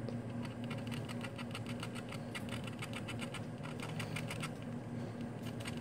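Knife blade scraping corroded copper plating off a circuit board in quick, repeated short strokes, over a steady low hum.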